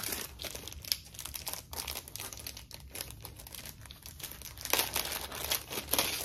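Plastic packaging crinkling and rustling as a phone case is unwrapped by hand, with louder crackles near the end.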